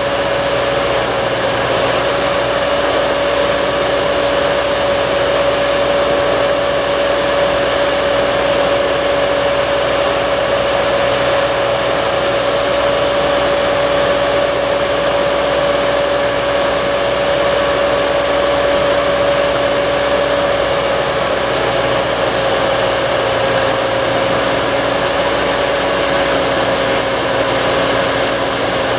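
Tractor engine running steadily at an even speed, a constant hum with a steady tone over it.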